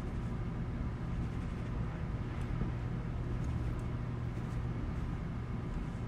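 Steady low hum of background room noise, with a few faint rustles as fingers work through hair.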